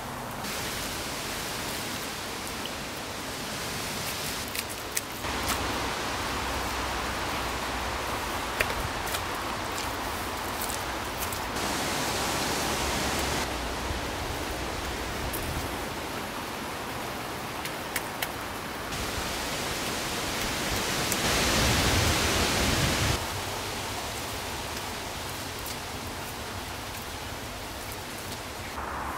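Steady rushing outdoor noise, a rain- or water-like hiss with no voice or music, that jumps abruptly in level several times and is loudest for a couple of seconds late on. A few sharp clicks and knocks stand out above it.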